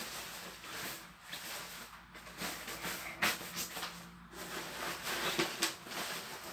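Thin nylon windbreaker fabric rustling and swishing as the jackets are handled and turned over, with a sharper swish about three seconds in.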